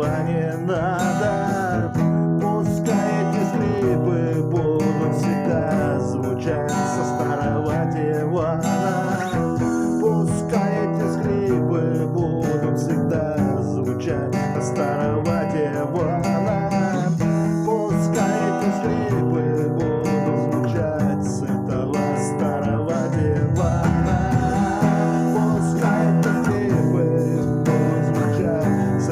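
Music: acoustic guitar playing steadily through a passage with no sung words.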